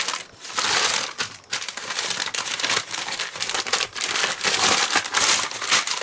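Padded shipping mailers crinkling and rustling in irregular bursts as they are handled and opened.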